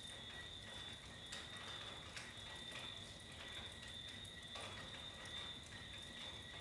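Faint night ambience during a tropical storm: a steady, unbroken high-pitched chorus of night animals, with irregular drips and ticks of rain falling over a low rumble.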